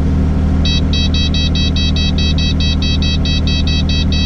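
Kubota 040 excavator's diesel engine running steadily, with a fast run of short electronic beeps, about six a second, from the cab's control display as its buttons are worked to set the auxiliary hydraulic flow.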